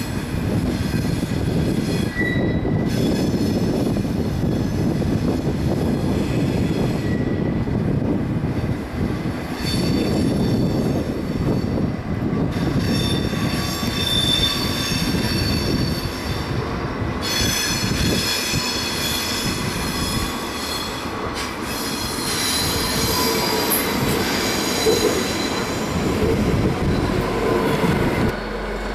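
ICE train's wheels squealing on the curves and points of the station tracks: several high squealing tones that come and go over a steady low rumble of rolling wheels.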